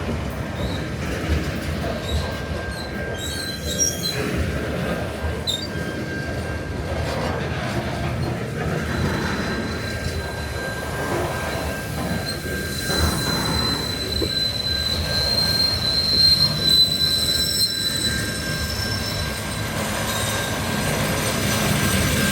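Loaded coal train's wagons rolling past, the wheels squealing in thin, high, steady tones over a low rolling rumble; the squeal is strongest a little past the middle.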